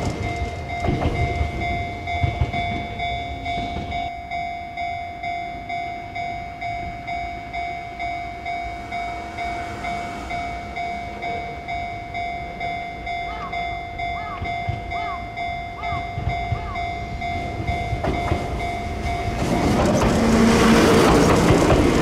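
Enoden level-crossing alarm ringing its repeated kan-kan dings, about three strikes every two seconds. A train's running noise fades out just after the start, and near the end another train's rumble rises as the ringing stops.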